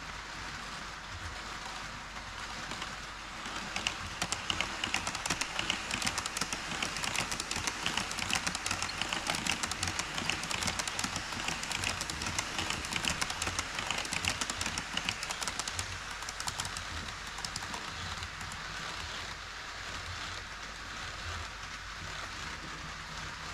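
HO scale model train rolling along KATO Unitrack, its wheels clicking rapidly on the rails. It grows louder about four seconds in, as if passing close, and eases off again after about fifteen seconds.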